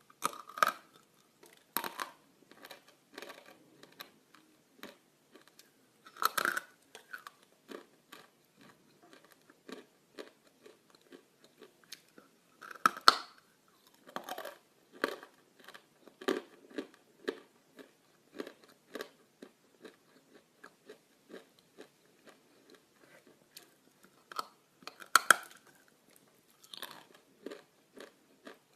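Lumps of dry edible clay (Astana Gold) being bitten and chewed close to the microphone. About five loud crunching bites stand out, with quieter crisp crunching chews between them.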